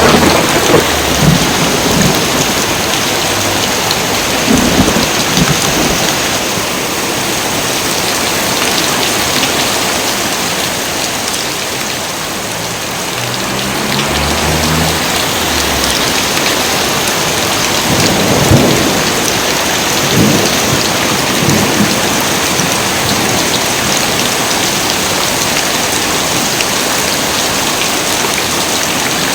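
Heavy rain falling steadily, with thunder rumbling several times: near the start, around five seconds in, in the middle, and a sharper crack with further rolls a little past halfway.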